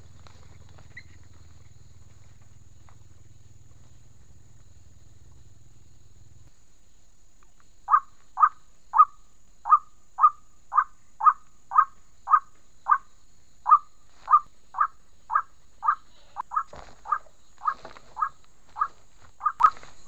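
White-breasted waterhen calling: a long series of short, repeated calls, about two a second, beginning about eight seconds in and coming a little faster near the end. Before the calls, only a faint low hum of rural background.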